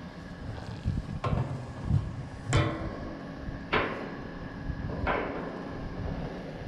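Carrier Comfort 14 heat pump outdoor unit around its shutdown: a steady low hum with a faint tone, broken by sharp knocks about every second and a quarter, each with a short metallic-sounding ring.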